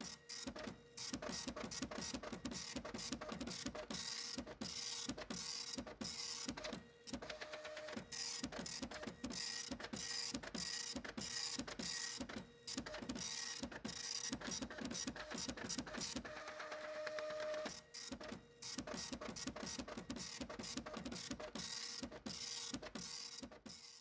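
Rapid, uneven mechanical clicking and rattling over a steady hum, with a few brief pauses and a short higher tone about two-thirds of the way through.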